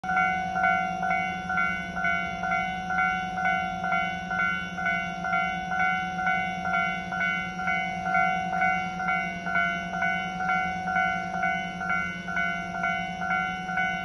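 Japanese level-crossing warning bell ringing in a steady, even rhythm of a bit over two strikes a second. Each strike is a bright, multi-pitched electronic "kan" tone. A steady low hum runs underneath.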